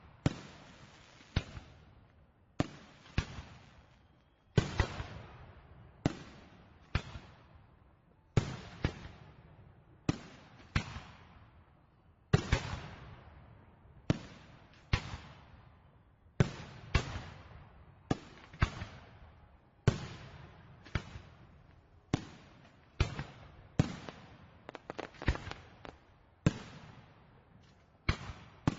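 Fireworks exploding in a steady string of sharp bangs, about one every second, often two close together, each followed by an echoing tail that dies away.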